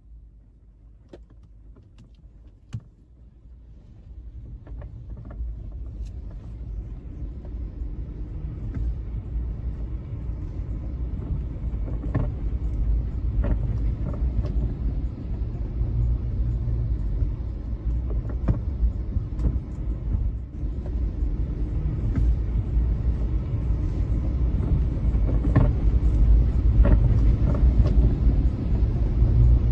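Car driving, heard from inside the cabin: a low engine-and-road rumble that grows louder over the first half, with scattered light ticks.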